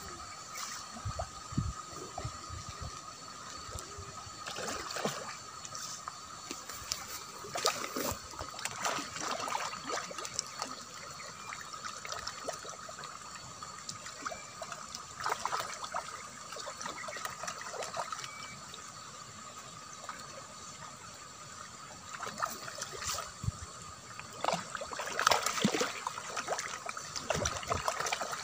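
Pond carp and tilapia splashing and slurping at the water surface as they feed: irregular small splashes and gulps that come in busier flurries, the busiest near the end. A faint steady high tone runs underneath.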